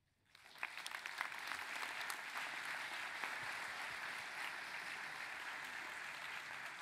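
Audience applauding: a dense, steady clapping that starts abruptly a moment in and keeps up without letting off.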